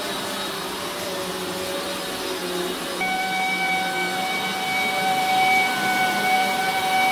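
Household vacuum cleaner running over the floors with a steady whine, which changes to a higher, clearer tone about three seconds in.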